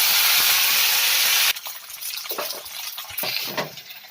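Freshly washed ajwain (Indian borage) leaves sizzling loudly in hot oil in a kadai; the hiss cuts off suddenly about a second and a half in. After that comes a quieter sizzle, with a few short scraping strokes of stirring in the pan.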